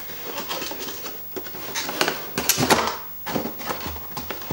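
Cardboard packaging being handled: a white cardboard insert tray scraping and rustling as it is slid and pressed into a motherboard box, loudest about two and a half seconds in.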